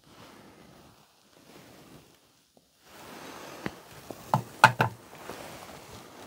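Faint room noise, then a quick cluster of sharp knocks and clicks about four and a half seconds in.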